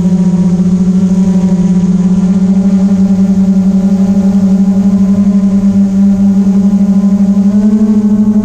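Camera drone's propellers and motors humming steadily with a rapid flutter; the pitch steps up slightly near the end.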